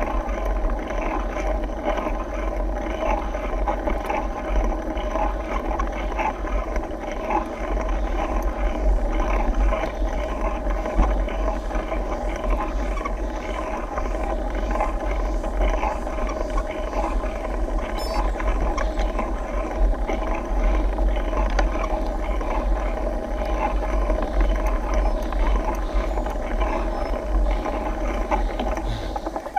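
Steady riding noise picked up by a mountain bike's handlebar-mounted camera: a constant low rumble with a rush of road and bike noise over it.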